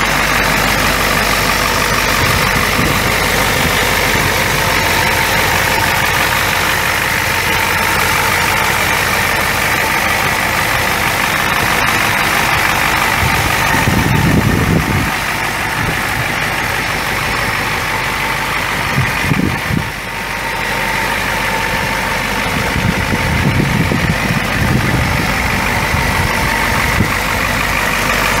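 The truck's 7.3-litre V8 turbo diesel idling steadily, with a few brief low rumbles partway through.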